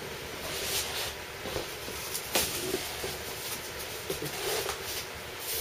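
Knife cutting open a large cardboard box, with cardboard and packing tape scraping and rustling in irregular strokes. The loudest stroke comes about two and a half seconds in.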